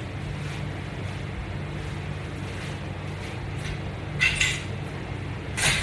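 Steady low background hum, with two short hissing sounds, one about four seconds in and one just before the end.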